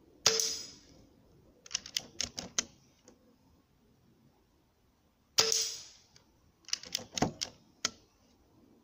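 Two shots from a Hatsan Galatian .22 PCP air rifle about five seconds apart, each a sharp crack with a short ring. After each shot comes a quick run of metallic clicks as the side lever is worked to load the next pellet.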